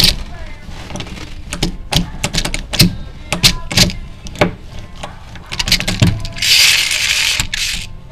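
Millers Falls No. 77 eggbeater hand drill being handled and worked: irregular sharp metallic clicks and knocks, with a hissing stretch of over a second near the end.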